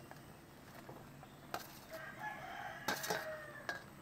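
Metal spoon clinking and scraping on a steel plate and pan as fried eggplant pieces are pushed into simmering curry, a few light clinks. A rooster crows faintly in the middle.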